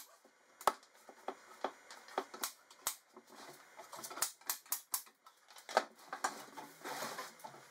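Plywood cabinet box being turned around on a workbench: irregular wooden knocks and clicks, with a longer scraping stretch near the end.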